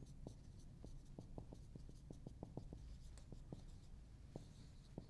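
Dry-erase marker writing on a whiteboard: faint, quick ticks and strokes of the felt tip on the board, about four a second.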